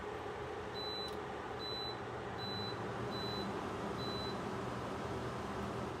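Midea portable air conditioner beeping five times, short high beeps about one every 0.8 seconds, as it takes button presses from its remote that lower the set temperature. Under the beeps the unit's fan runs steadily with a low hum.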